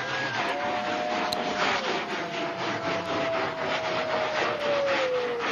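Bung fai talai, a spinning Thai ring rocket, climbing under thrust: a dense rasping crackle from its burning motors, with a held whistling tone that slides down in pitch near the end.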